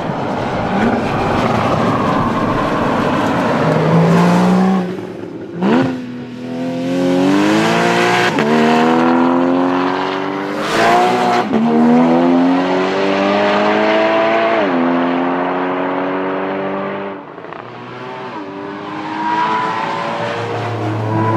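Porsche Boxster GTS's flat-six engine accelerating hard through the gears, its pitch climbing and then dropping sharply at each upshift, several times in a row. It falls away about two-thirds of the way in, then builds up again near the end.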